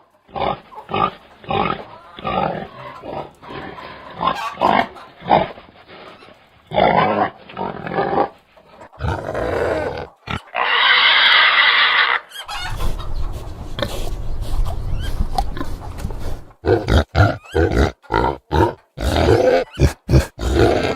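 Pigs making short repeated calls, with one loud squeal lasting about two seconds about ten seconds in.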